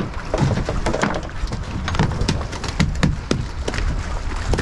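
A string of irregular knocks and taps over a steady low wind rumble on the microphone.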